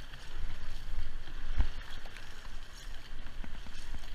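Crew paddles of a voyageur canoe digging into and splashing through the water in irregular strokes, over a steady low wind rumble on the microphone.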